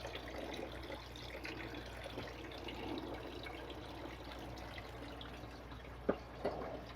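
Water trickling and dripping in an aquaponics system, over a steady low hum. Two short knocks come about six seconds in.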